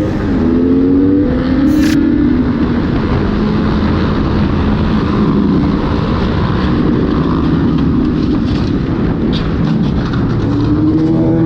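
Motorcycle engine pulling hard at speed, its pitch rising over the first two seconds, then holding steady and rising again near the end, over a steady rush of wind noise. A sharp click about two seconds in.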